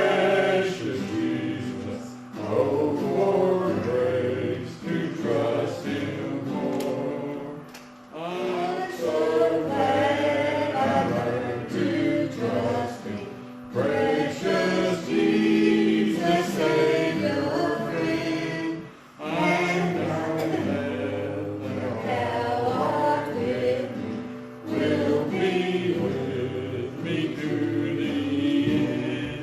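A group of voices singing a gospel hymn in church, phrase after phrase with short breaths between, over steady low sustained notes.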